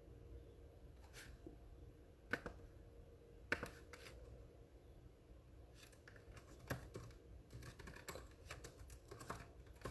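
Faint laptop keyboard typing: a few scattered keystrokes at first, then quicker runs of key taps from about six seconds in.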